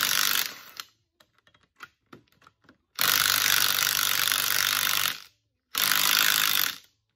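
Cordless 1/4-inch impact driver with a 9/16 socket hammering on dry axle-end nuts, worked in short bursts. One burst ends within the first half-second, a few faint clicks follow, then a two-second run about three seconds in and a shorter one near six seconds.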